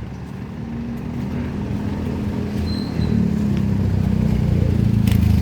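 A motor vehicle's engine running close by, a low steady hum that grows louder from about three seconds in as it draws nearer.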